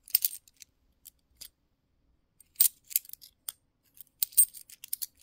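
50p coins clinking and clicking against each other as they are handled, in three short clusters of sharp clicks with pauses between.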